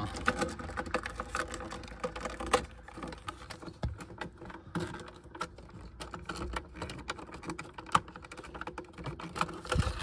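Irregular small plastic clicks and taps from a C6 Corvette's glove box latch being worked loose from the door by hand, with a few sharper clicks among them.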